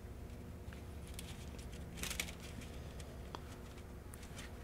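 Faint handling sounds of hands working a rig's pin through a ballyhoo's jaw and lips: a few soft clicks and a brief rustle about two seconds in, over a low steady hum.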